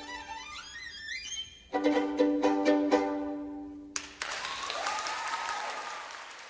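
Violin piece ending with a fast rising run, then a string of accented closing chords that stop about four seconds in. Applause follows and fades away.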